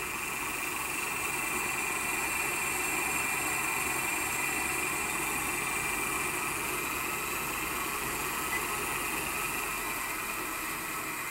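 Salvaged treadmill motor spinning a small Harbor Freight wood lathe's spindle through a belt at its top setting, about 2000 rpm. It runs unloaded at a steady speed, with a steady high whine over the hum.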